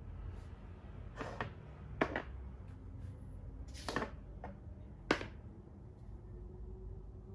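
Plastic Thai chess (makruk) pieces clicking as they are picked up and set down on the board, with a handful of sharp taps about a second apart.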